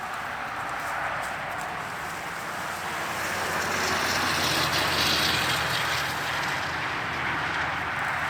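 Tractor engine running steadily, growing louder around the middle and then easing back a little.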